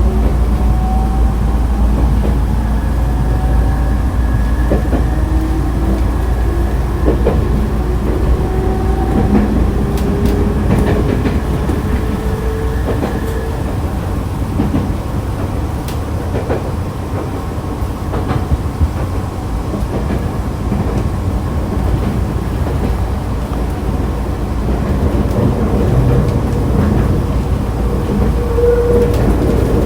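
Onboard running sound of Nankai electric train set 2036F: a steady low rumble of wheels on rail with scattered rail-joint clicks. A faint motor whine rises slowly in pitch over the first half, with another whine returning near the end.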